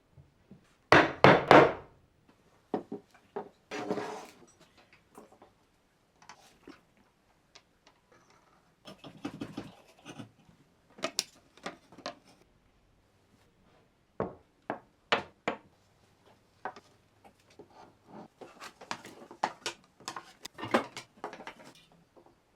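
Small wooden parts being handled and worked by hand: scattered knocks and clicks of wood on wood, with short stretches of scraping or rubbing and quiet gaps between.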